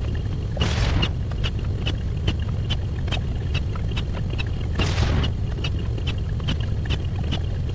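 Sped-up counting sound effects: a steady low rumble under rapid sharp ticks, about four a second, each with a short high beep. A hissing whoosh comes about half a second in and again about five seconds in.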